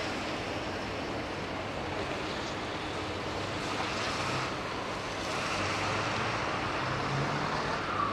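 Steady rushing wind noise, with a faint low hum coming and going underneath in the second half.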